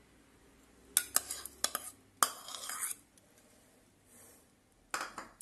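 Kitchen utensils clinking and scraping against a stainless-steel mixing bowl as chopped tomatoes are tipped in: a quick cluster of clicks about a second in, a longer scrape just after two seconds, and a short clatter near the end.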